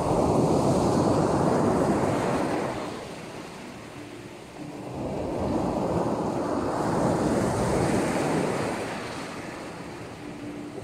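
Sea waves breaking, swelling and fading in two long surges.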